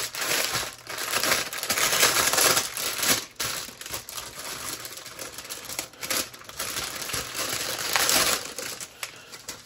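Clear plastic wrap crinkling and rustling as it is pulled off a bundle of small plastic bags of diamond-painting drills, in uneven bursts that are loudest about two seconds in and again near the end.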